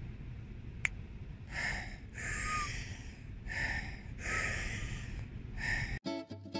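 A person breathing deeply and forcefully through the open mouth: Wim Hof method breathing, with about five breaths in a steady rhythm, roughly one a second. Music cuts in near the end.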